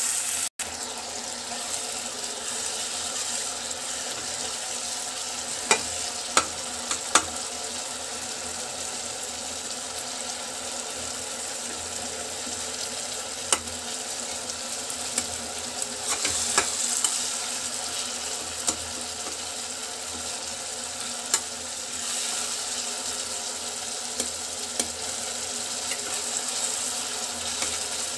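Chopped onions, tomatoes and green chillies sizzling steadily in oil in a wok while being stirred. A metal spatula now and then clicks and scrapes against the pan.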